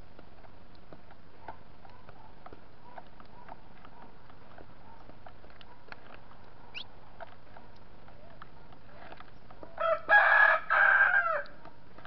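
Faint scattered ticks of small birds pecking at corn meal on a feeder tray, then a rooster crows once about ten seconds in, a loud call of under two seconds in a few parts, its last note falling away.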